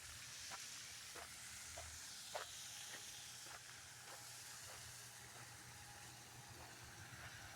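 Quiet footsteps at an even walking pace, about one every half second, over a faint steady hiss.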